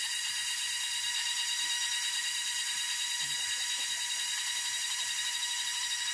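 A steady, high buzzing drone that holds the same pitch and level throughout.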